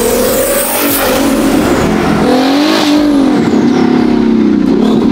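Twin-turbocharged Ferrari F12's V12 engine revving hard, its pitch rising, dropping, rising again and falling away.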